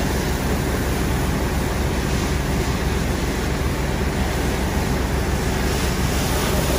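Steady rushing hiss from a fire hose wetting down a burned car's engine compartment, over the low, even drone of a running engine.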